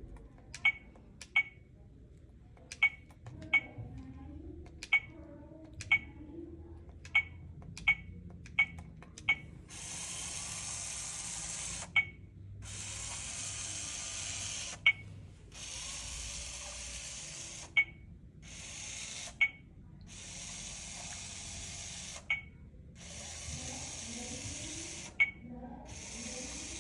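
Blue-Bot floor robot being programmed: about a dozen button presses, each a click with a short beep, over the first nine seconds. Then its small gear motors whir through seven separate moves of one to two seconds each, pausing with a beep between steps as it runs the entered code.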